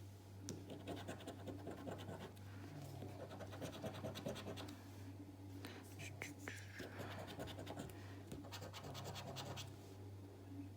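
A coin scraping the silver latex off a scratch card in quick, short strokes, over a faint steady low hum.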